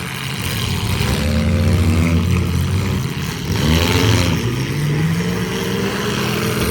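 A vehicle engine revving, its pitch rising and falling several times as the throttle is worked.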